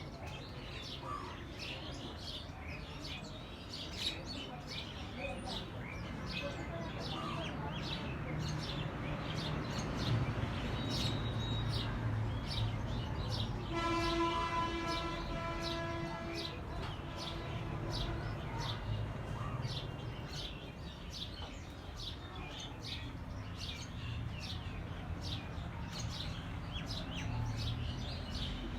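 Small birds chirping steadily over a low rumble that swells through the middle. A horn sounds one held note for about three seconds, about halfway through.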